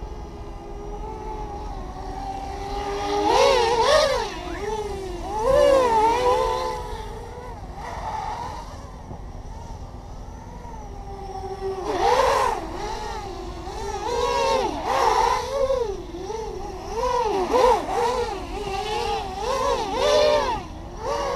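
Brushless motors and propellers of an OFM Hyper 330 racing quadcopter in flight, heard from on board: a whine that rises and falls in quick swoops as the throttle changes. It is steadier in the middle, with bursts of rapid swooping about three seconds in and again from about twelve seconds on.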